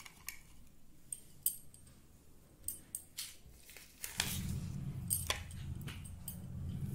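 Scattered light clicks and ticks from hands handling peeled pomelo segments over a ceramic plate. About four seconds in, a low steady rumble joins the clicks.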